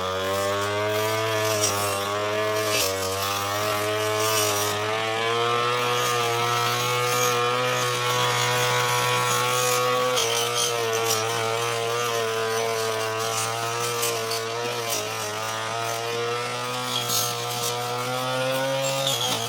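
Petrol brush cutter (grass-cutting machine) running at high speed while cutting tall, thick grass. The engine note wavers and dips briefly several times, with light crackling on top.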